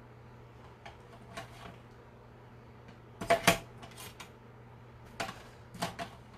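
Hard-shelled eggs clicking and knocking against a clear plastic egg tray and against each other as they are handled and picked up: a scatter of short sharp taps, loudest a little past halfway.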